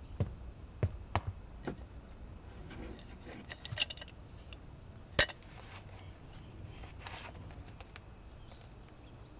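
Scattered light knocks and clinks of a bucket of tar being handled and felt at the bottom for a hidden mine. The sharpest click comes about five seconds in.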